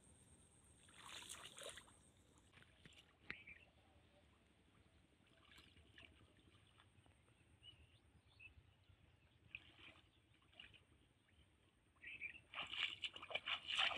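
Feet wading through shallow muddy water: faint, sparse sloshes for most of the time, then a quicker run of louder splashes near the end as the steps come closer.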